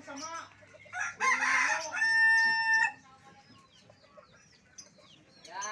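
A rooster crowing once, about a second in, rough at the start and ending on a long held note. Faint chirps of small birds around it.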